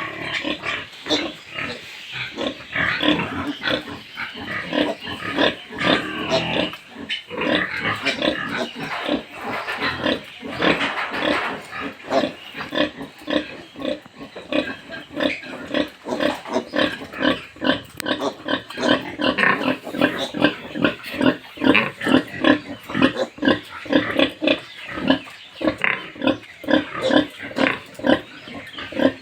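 Pigs grunting and squealing in a farm pen. Shrill squeals are mixed in through the first half, and in the second half the sound settles into a steady run of short grunts, about two a second.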